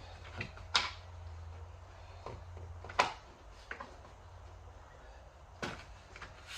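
Sharp plastic-and-metal clicks and knocks from hands working on the mirror's fittings inside an open car door: two loud clicks about two seconds apart, a softer one near the end, over a low hum.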